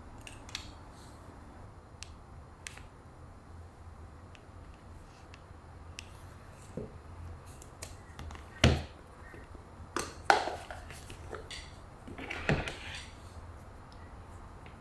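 Small handling sounds at a wooden table: scattered light clicks and taps, a soft thud about nine seconds in as a hardcover notebook is closed and set down, two sharper taps a second or so later, and a brief sliding rustle near the end as the notebook and a glasses case are moved aside.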